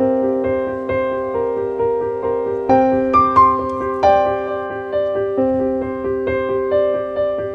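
Gentle background piano music: a slow run of sustained notes, each struck and fading away.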